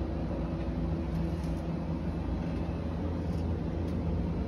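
Steady low mechanical hum of a running machine, unchanging throughout.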